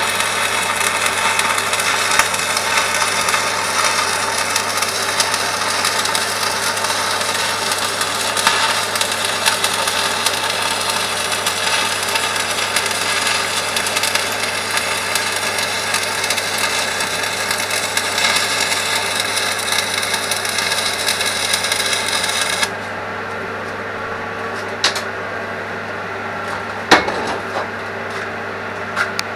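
Continuous noise from metalwork on a steel digger bucket, dense and crackly with steady tones running through it, that stops about three-quarters of the way in. A low steady hum and a couple of sharp clicks remain after it stops.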